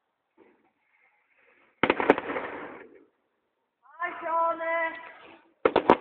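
Fireworks display going off: a crackling cluster of bangs about two seconds in and another just before the end. Between them comes a held pitched call lasting about a second and a half.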